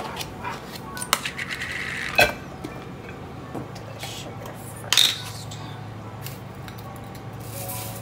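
Kitchen handling sounds: a metal spoon clinking against small plastic containers while screw-top lids are opened and set down on a stone countertop. There is a run of small clicks early on and two sharp knocks, about two seconds in and about five seconds in.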